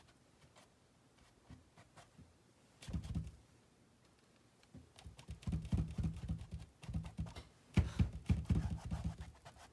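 Paintbrush dabbing and scrubbing acrylic paint onto a stretched canvas, giving rapid, soft, low taps as the canvas gives under the brush: a short run about three seconds in, then a longer run through the second half.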